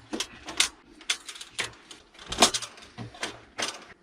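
Handling noise from working on the opened LCD monitor's parts: a series of short, sharp clicks and knocks, about two a second, unevenly spaced.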